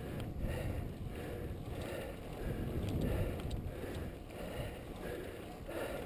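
Steady wind rushing over the microphone of a bicycle coasting fast down a paved mountain road, mixed with the tyres' road noise.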